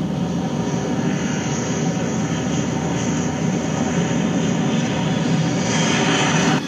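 Defroster machine running: a steady droning hum with a rush of blowing air. The hiss grows brighter near the end, then cuts off suddenly.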